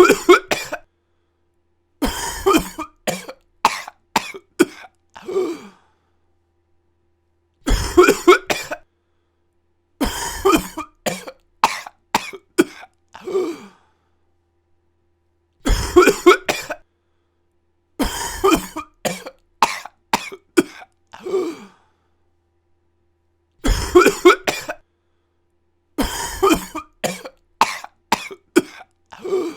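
A person coughing: a short burst of coughs, then a run of about five separate coughs over some four seconds, with dead silence between groups. The same pattern repeats roughly every eight seconds.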